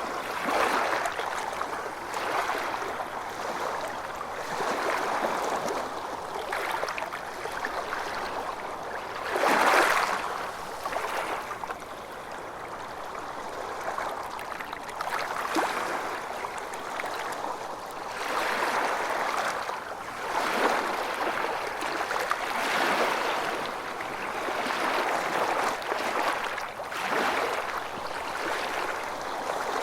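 Ocean waves washing onto a shore, a steady wash of surf that swells and eases every few seconds, with one stronger surge about a third of the way in.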